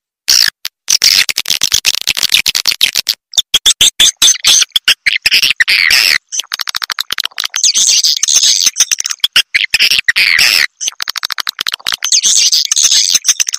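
Edible-nest swiftlet calls from a swiftlet farmer's lure recording (suara panggil, the call used to draw swiftlets to a bird house). Many high twittering chirps run over fast, dense clicking, with a few brief breaks.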